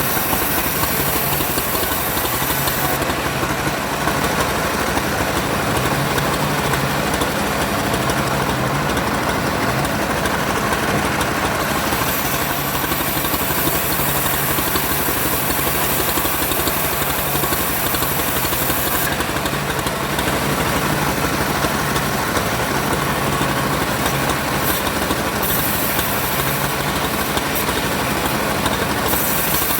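An engine-driven wood saw running steadily under a constant engine drone with a hiss over it. The high hiss eases for a few seconds at a time and comes back.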